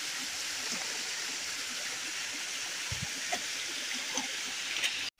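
Steady rushing of flowing water, with a few faint crackles as soft, crumbly vein rock is broken apart by hand.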